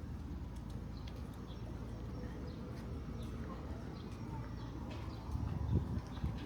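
Outdoor town ambience: a steady low rumble with light, irregular clicks and taps, and a louder low rumble swelling for about a second near the end.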